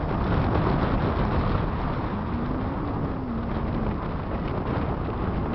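Wind buffeting the microphone over the steady low rumble of a cruise boat's engine.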